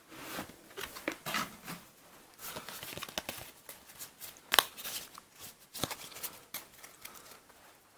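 Foil trading-card booster pack being opened and its cards handled: an irregular run of short crinkles, rustles and snaps, with one sharper snap about four and a half seconds in.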